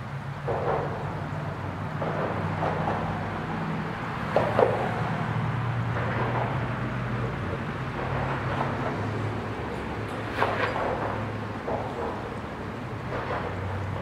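Traffic crossing the road bridge overhead, heard from beneath the deck: a steady low rumble with brief louder swells as vehicles pass every couple of seconds.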